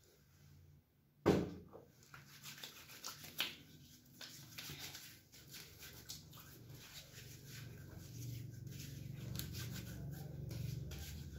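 A pump bottle of hand sanitizer pressed into the palm, with one sharp loud sound about a second in. Then hands rubbing the sanitizer in, with soft, irregular rubbing and clicking strokes.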